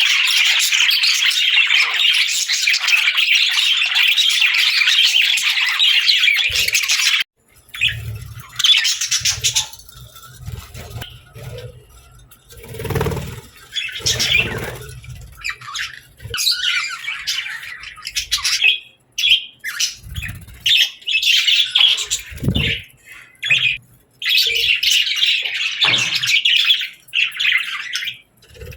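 Pet budgerigars chattering and squawking. A dense stretch of chatter stops suddenly about seven seconds in. Scattered calls with a few low thumps follow, and the dense chatter comes back near the end.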